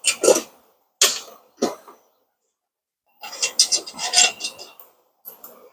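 Socket ratchet clicking and metal clinking in short bursts while the mower deck cover bolts are loosened and taken out, with a longer run of quick ratchet clicks partway through.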